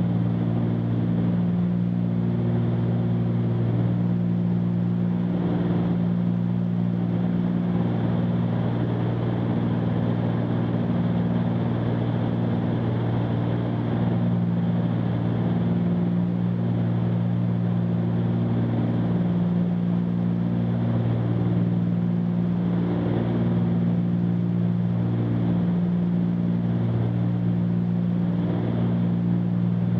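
Cessna 310Q's twin piston engines and propellers droning steadily in flight, a constant low hum whose upper tones swell and fade every few seconds over a steady rush of air noise.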